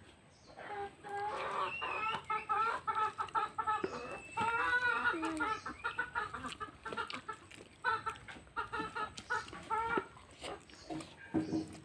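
Chickens clucking and cackling in a run of short, wavering calls from about a second in until near the end, with a few faint clicks among them.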